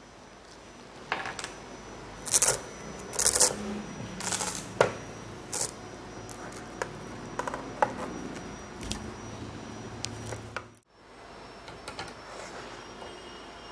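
Items being handled on a desk: packaging rustles in a few short crinkling bursts, with scattered small clicks and knocks. The sound cuts out for a moment near the end.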